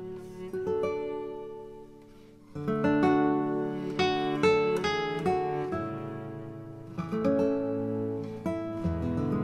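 Background music on acoustic guitar. It fades softly about two seconds in, then comes back louder.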